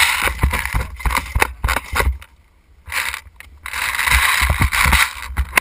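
Handling noise from an airsoft gun being carried and moved, picked up by the camera mounted on it: irregular knocks and clicks with rustling. The noise dips almost to quiet a little over two seconds in, then rustles on more steadily near the end.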